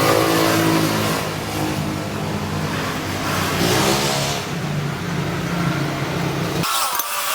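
Honda Vario Techno 110 scooter's small single-cylinder four-stroke engine running, revved up once about four seconds in, then cutting off suddenly near the end.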